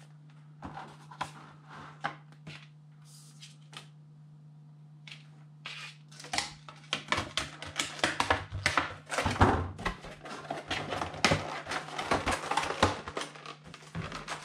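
Clear plastic packaging from a card collection box being handled: a few light clicks at first, then dense crinkling and crackling from about six seconds in as the plastic is gathered and pushed into a waste bin. A steady low hum runs underneath.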